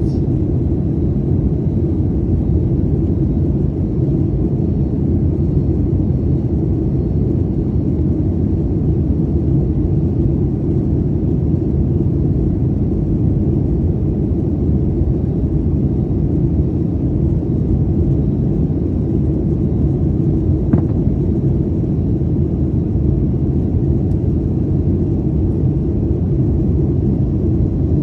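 Steady low rumble of engine and airflow noise heard inside the cabin of a Boeing 737 airliner, with one faint click about 21 seconds in.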